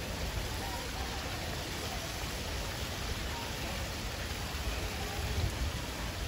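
Steady rushing outdoor noise with a low rumble underneath and faint distant voices.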